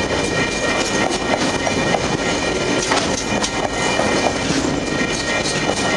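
Container wagons of a freight train rolling past at a steady speed, giving a continuous rumble with irregular clicks from the wheels passing over the rail joints.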